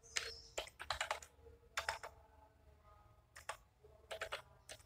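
Typing on a computer keyboard: keystrokes clicking in a few short bursts, with a pause of about a second in the middle.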